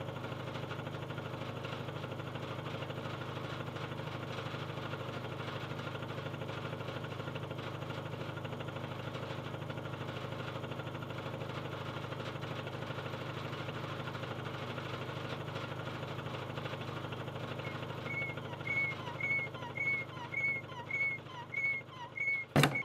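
Old belt-driven drum sander running unloaded, its electric motor and belts driving the drum, turned down by a smaller motor pulley: a steady hum with a fine, even fast flutter. Near the end, short chirping squeaks come in about twice a second, then a sharp knock at the very end.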